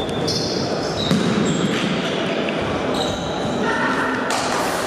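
Indoor futsal game sounds echoing in a large hall: the ball being kicked and bouncing on the wooden floor, with short high squeaks and players' shouts.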